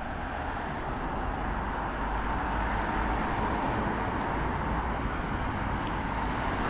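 Road traffic going past on a town street: a steady rush of car engines and tyres that slowly grows louder as a vehicle approaches.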